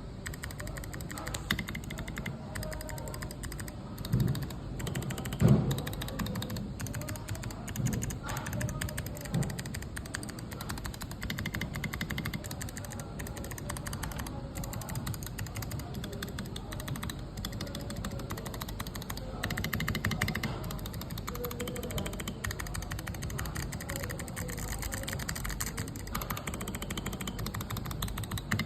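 Typing on a transparent gasket-mount mechanical keyboard: rapid, continuous keystrokes, with a few louder key strikes in the first ten seconds.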